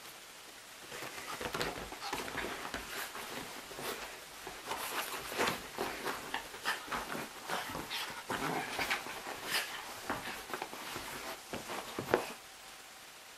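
A wet Yorkshire terrier puppy rubbing and rolling itself on fabric sofa cushions to dry off after a bath: a long run of irregular, short rustling scuffs, ending with one sharper knock near the end.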